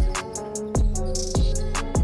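Background music with a steady beat: a heavy bass drum about every 0.6 seconds, fast hi-hat ticks and held bass and melody notes.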